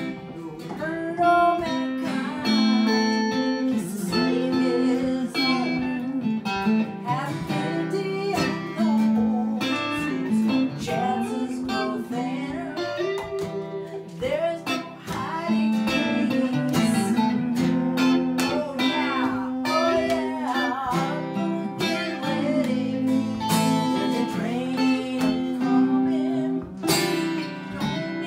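Two guitars playing together: an acoustic guitar strumming sustained chords while a second guitar plays lead lines with bent, sliding notes over them.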